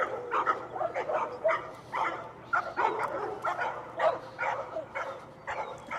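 Several dogs barking repeatedly in short, irregular barks, about two or three a second, overlapping one another.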